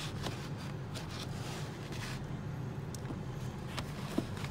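Steady low hum of background noise, with a few faint clicks near the end.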